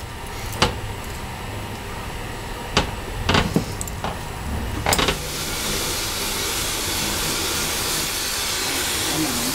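Metal knocks and clanks at the firebox door of oil-burning steam locomotive McCloud #25 as a burning rag is put in to light the fire. About five seconds in, a steady rushing hiss sets in as the atomized-oil burner lights off.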